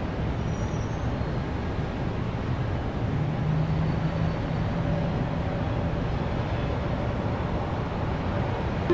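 Steady low rumbling noise with a faint low hum, like a vehicle or traffic, and no music.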